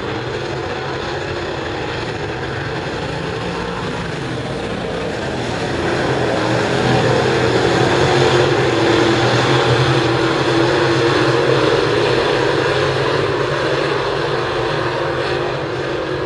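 Dirt late model race cars' V8 engines running hard around the track, a steady engine drone that swells about six seconds in as cars pass close, then eases off.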